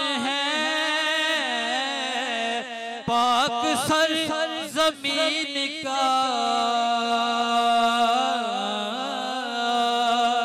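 A man's voice sings a Muharram kalam into a microphone, drawing out a long wordless melisma. In the second half he holds one long note.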